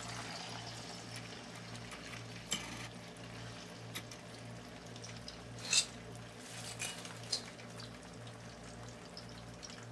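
Marinated whole chicken shallow-frying in hot oil in a pan: a steady sizzle with a few sharp crackles and pops scattered through it.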